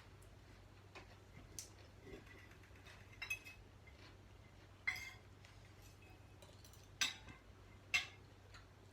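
Cutlery clinking against plates and bowls while eating: scattered short clinks, the loudest about five, seven and eight seconds in, over a faint low steady hum.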